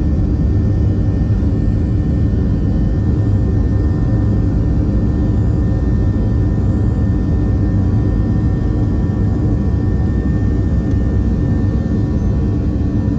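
Boeing 737-700's CFM56-7B turbofan engines running at high power, heard inside the cabin over the wing as the jet rolls down the runway for takeoff. It is a loud, steady rumble with a faint thin whine riding above it.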